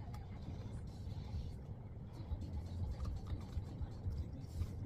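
Steady low rumble with a few faint clicks and light scraping as a plastic door trim piece wrapped in carbon-fibre vinyl is handled and turned over.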